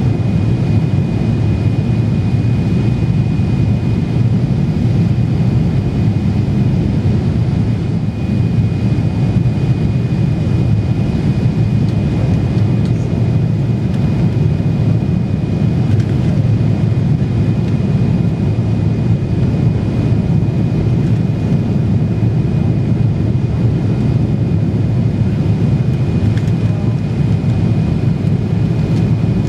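Boeing 777-300ER cabin noise on approach with flaps extended: the GE90 engines and airflow make a steady low rumble, with a thin steady whine over it.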